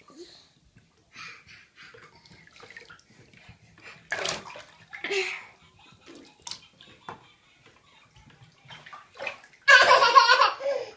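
Bathwater splashing and sloshing in a bathtub as a baby plays with her hands in it, in short irregular splashes. Near the end the baby lets out a loud squeal.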